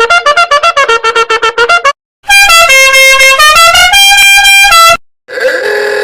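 Meme sound effects played back to back: a rapidly pulsing buzzy tone, then, after a short gap about two seconds in, a loud horn-like melody of stepped notes lasting about three seconds. Near the end comes a short tone that dips and rises in pitch.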